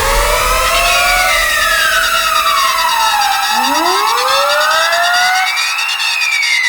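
Loud electronic alarm sound effect: a siren-like wail that sweeps slowly down and back up, about three seconds each way, layered with other rising tones and a harsh high buzz.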